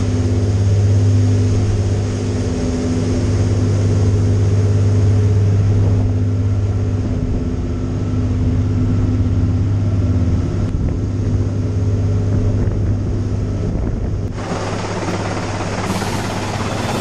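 Passenger ferry's engines droning steadily with a low hum, along with wind and rushing water. About fourteen seconds in, a louder rushing noise joins, from a helicopter hovering close overhead.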